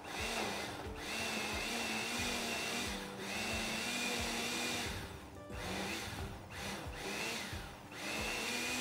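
Countertop blender pulsed in about six short runs of one to two seconds each, the motor whine rising at the start of every run as it spins up, chopping a jar of tomatoes, jalapeño, onion and cilantro into salsa.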